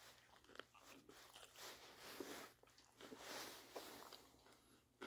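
Faint chewing of a mouthful of tortilla wrap filled with crunchy sautéed potatoes, with soft crunches and small mouth clicks.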